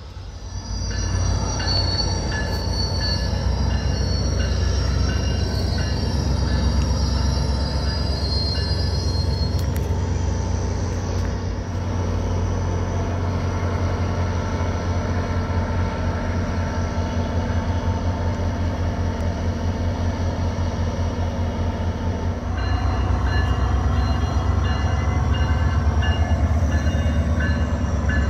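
A SunRail commuter train led by an MPI MP32PH-Q diesel locomotive passes with a loud, steady rumble. A wavering high wheel squeal rides over it for the first ten seconds or so, and the rumble grows louder again near the end.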